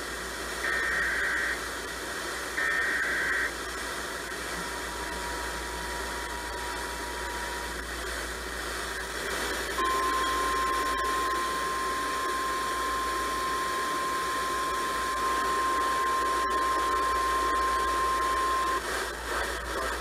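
FM radio speaker playing the end of an Emergency Alert System broadcast. First come the last two of the three end-of-message data bursts, each about a second long, over steady radio hiss. About ten seconds in, a single steady tone starts and holds for about nine seconds before cutting off.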